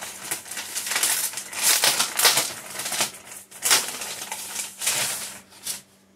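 Packaging being handled and pulled open: irregular crinkling, rustling and scraping, dying down near the end.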